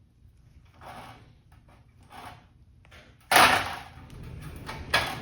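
Aircraft snips cutting sheet-metal flange: two faint snips, then a loud sharp cut about three seconds in that trails off, and another short cut near the end.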